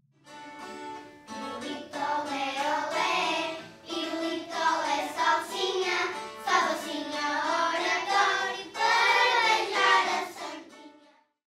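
A group of children singing together, a phrase of Alentejo cante, fading out near the end.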